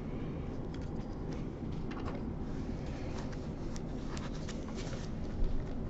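Faint scattered clicks and light scrapes of small parts being handled while a stereo microscope's zoom mechanism is adjusted, over a steady low hum.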